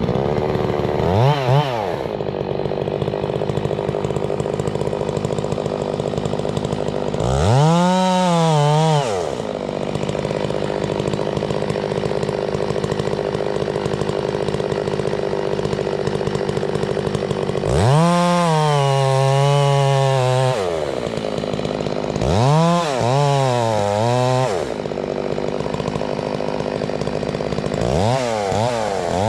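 Chainsaw idling, throttled up five times into high-revving spells of a second or two each that climb in pitch, hold and drop back to idle.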